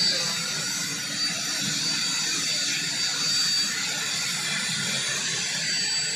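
Army helicopter's turbine engine and rotors running, a steady whining rush with a high steady tone that weakens about halfway through.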